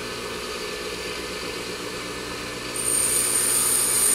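Bench grinder running with a steady hum; about three seconds in, a high-speed steel tool bit is pressed against the wheel and a loud, high-pitched grinding hiss starts as the top rake face is ground toward the tip.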